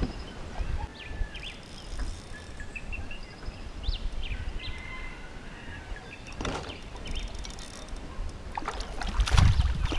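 Water sloshing against a small boat's hull over a low rumble, with faint bird chirps in the first few seconds. A louder knock or splash comes about six and a half seconds in, and more near the end.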